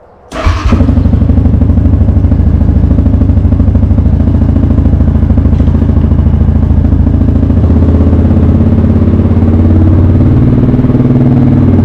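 2022 Yamaha Grizzly 700 ATV's single-cylinder four-stroke engine starting about half a second in, then idling steadily with an even, rapid throb.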